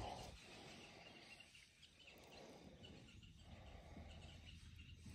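Near silence: a faint hiss that swells and fades about every second and a half.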